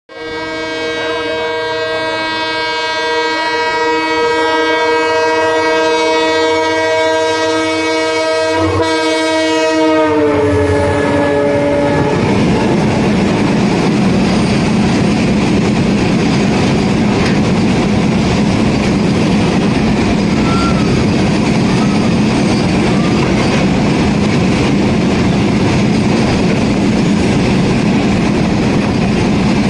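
WDG4 diesel locomotive's multi-tone air horn blown in one long, loud chord for about ten seconds, dropping in pitch as the locomotive passes and then trailing off. After that comes the steady rumble and clatter of the BOXN freight wagons rolling past at speed.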